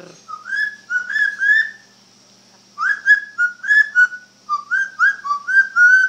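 Yellow-crowned Amazon parrot whistling a series of short, sliding notes: a short run, a pause of about a second, then a longer run of quick notes.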